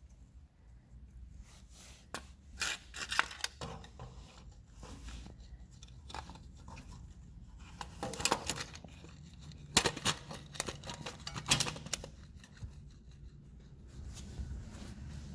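Handling noise: bursts of scraping and sharp clicks in three clusters, over a faint low hum.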